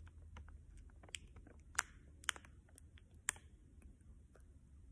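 Faint scattered ticks and crackles of a plastic candy packet being handled, with four sharper clicks in the middle.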